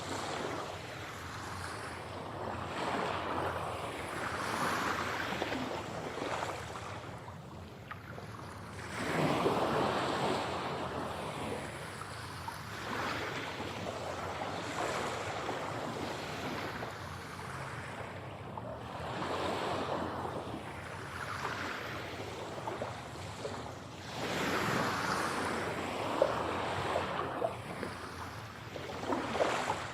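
Sea waves breaking and washing back in repeated surges every few seconds, some swells louder than others.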